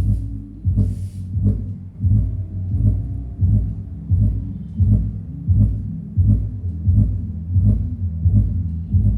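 Yocoma 10-inch car subwoofer playing an electronic music track through a low-pass crossover, so only the deep bass line and kick drum come through. A heavy beat lands about every three-quarters of a second, with faint ticks above it.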